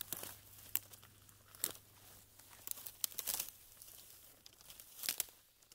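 Faint, irregular crackles and rustles with a few sharp clicks among them, over a low steady hum, fading out near the end.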